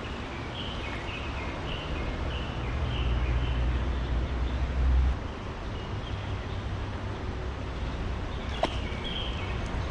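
Low traffic rumble from the elevated highway overhead, swelling for a few seconds and dropping off sharply about five seconds in. A small bird chirps in short repeated notes early on and again near the end, and there is one sharp click shortly before the end.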